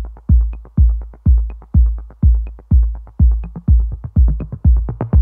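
Electronic background music: a deep, steady kick drum about twice a second under fast ticking percussion.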